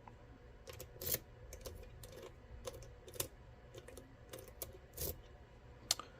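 Small, irregular clicks and taps of a Mul-T-Lock MT5+ lock cylinder and metal tools being handled, about a dozen over six seconds, the loudest about a second in and again near the five-second mark.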